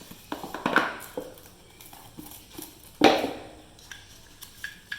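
Phone box and accessories being handled on a table: scattered light knocks and clicks, with one sharper knock about three seconds in.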